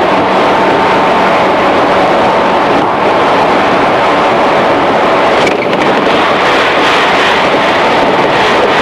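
Running sound inside the motor car of a JR 211 series electric train travelling steadily at speed: dense rumble of wheels on rail under a steady hum and whine from the traction motors and gears. The sound changes briefly about five and a half seconds in.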